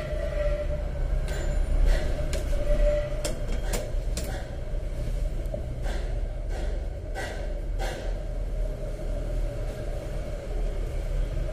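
Light taps and knocks as a plastic twin-bell alarm clock is handled and set down on a board, scattered through a steady low electrical hum.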